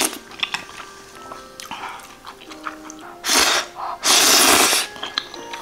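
Two loud bursts of a person's breath, about half a second and nearly a second long, one just after the other, over quiet background music.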